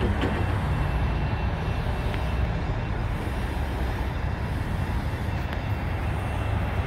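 Steady low vehicle rumble with a faint thin high tone running through it.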